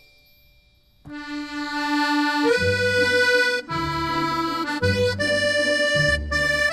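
Background music: after a near-silent first second, a tune of held, sustained chords begins, with a bass line joining about a second and a half later.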